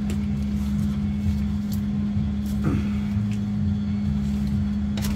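A steady low machine hum throughout, with a faint click about two and a half seconds in.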